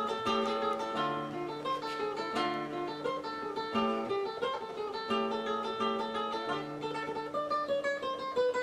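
Background music: plucked acoustic guitar playing a melody over held bass notes.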